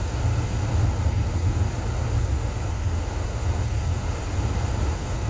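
Steady low rumble of a car driving at road speed, heard from inside the cabin: tyre, road and engine noise.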